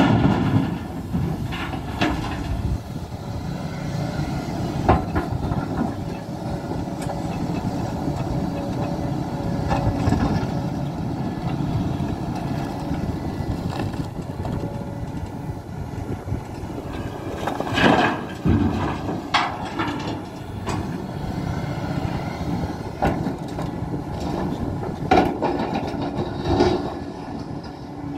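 Hidromek 390LC excavator's diesel engine working under load, with scattered clanks and knocks of rock in the bucket and dropping into a dump truck. The loudest knocks come about two-thirds of the way in and again near the end.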